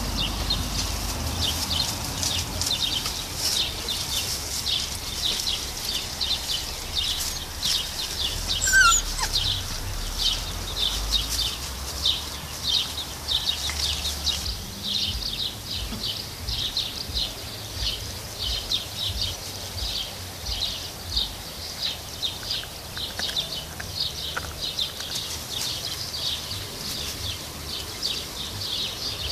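Rapid high chirping outdoors, about two or three short chirps a second, with one quick rising whistle about nine seconds in.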